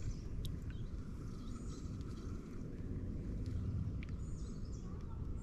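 Open-air ambience: a steady low rumble with faint, short high bird chirps several times and a couple of light clicks.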